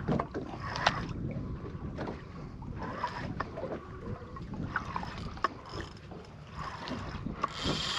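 Outdoor boat ambience: wind buffeting the microphone over a low rumble, with scattered light knocks and clicks. Near the end the background changes suddenly to a steadier hiss.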